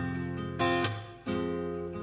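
Karaoke backing track in a short instrumental gap: acoustic guitar strumming sustained chords, with new strums about half a second in and again just past a second.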